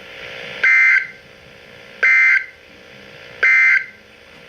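NOAA Weather Radio Emergency Alert System end-of-message data bursts: three short, loud two-tone digital screeches about 1.4 seconds apart, over a low radio hiss. The burst sent three times marks the end of the alert broadcast.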